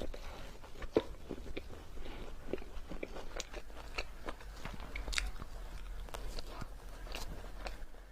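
Close-miked biting and chewing of ice cream: irregular crisp crunches and wet mouth clicks, the sharpest crunch about a second in.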